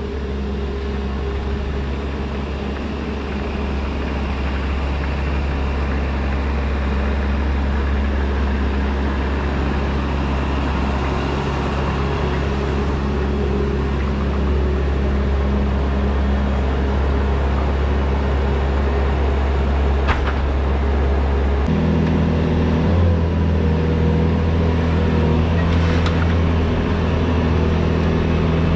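Skid steer loader's engine running steadily while it carries a basket of river stone on pallet forks; the engine note steps up about three-quarters of the way through.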